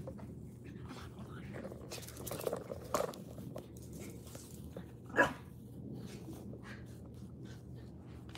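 Small dogs at play, one giving a single sharp bark about five seconds in.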